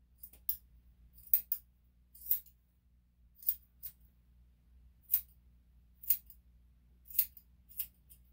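Grooming scissors snipping a dog's hair: about a dozen short, crisp cuts at an uneven pace.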